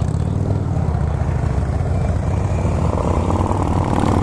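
Harley-Davidson Dyna Low Rider's V-twin engine running steadily at low speed as the bike rolls slowly, heard from on the bike.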